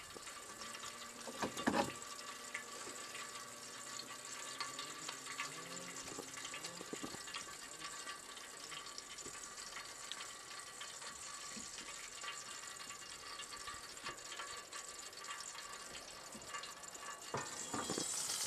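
Faint steady hiss of a portable gas camp stove burning under a pan of heating oil, with a couple of sharp knocks about two seconds in.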